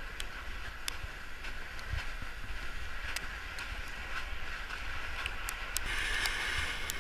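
Freezing rain outdoors: a steady hiss with scattered sharp ticks, over a low rumble of wind on the microphone. The hiss grows a little louder near the end.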